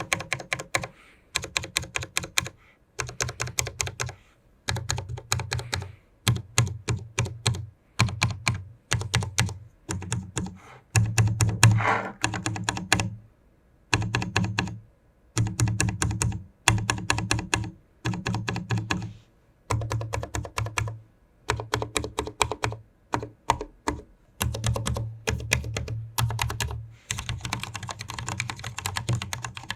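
Typing on a Cherry MX Board 10.0 RGB, a low-profile mechanical keyboard with Cherry MX Red switches. Fast runs of keystrokes come in bursts of one to two seconds with short pauses between them, and a longer unbroken run comes near the end.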